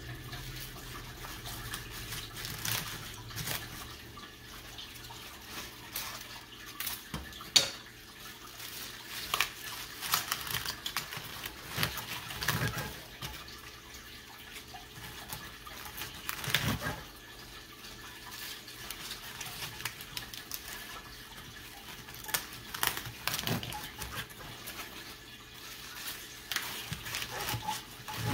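Wet mustard green leaves being pressed and packed by hand into a large glass jar, making irregular crackling and rustling with light knocks against the glass. The sharpest knock comes about seven and a half seconds in.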